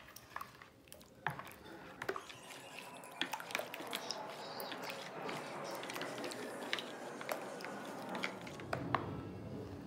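A spoon stirring runny cassava cake batter in a plastic mixing bowl: a wet sloshing and squishing with scattered sharp clicks, fuller from a couple of seconds in until near the end.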